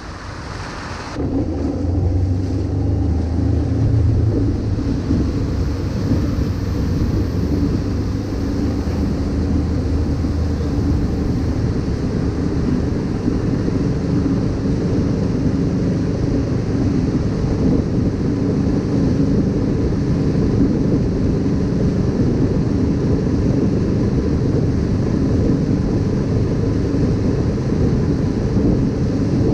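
Wakesurf boat's engine running steadily underway, with water rushing and wind buffeting the microphone. The sound jumps louder about a second in, then holds steady.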